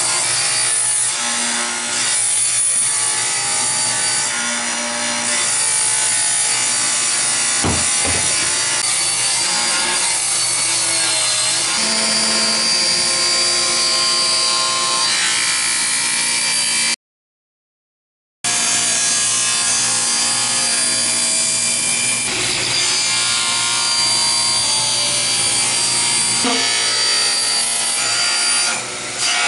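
Table saw ripping a sheet of plywood: the motor and blade run steadily under load through the cut. A second-and-a-half of complete silence breaks it a little past halfway, and it dies away near the end.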